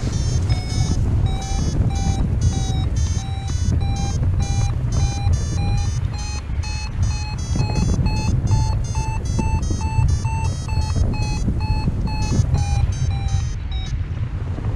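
Paragliding variometer sounding its climb tone: short, quick beeps a few times a second, rising slowly in pitch and then easing down near the end, signalling that the glider is climbing in lift. Steady wind noise rumbles on the microphone underneath.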